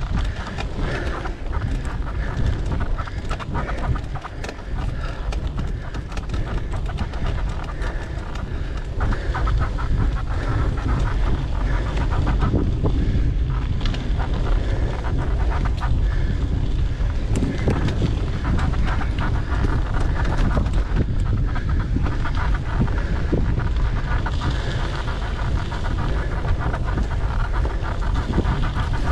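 Mountain bike being ridden along a dirt trail: wind buffeting the microphone over a steady stream of rattling and clicking from the bike on the rough ground.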